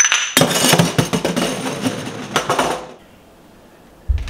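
Ceramic and glass decor pieces being set down and shifted on a shelf: a quick run of clinks and knocks lasting about three seconds, with a low thump near the end.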